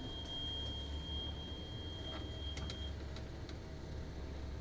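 Steady low hum inside a diesel coach's cabin, with a thin high whine that stops about three seconds in and a few light clicks.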